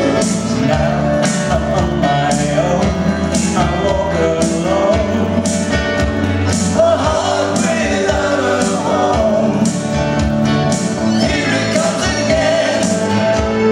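Live band music: electric guitar, bass guitar and keyboards playing over a steady beat, with a male voice singing.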